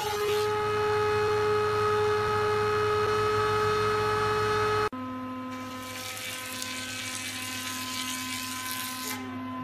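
Woodworking machinery running: a power-fed wood moulding machine gives a steady high motor whine over a low hum. About five seconds in this changes abruptly to a quieter machine with a lower steady hum and a steady hiss while a wide panel is fed through it.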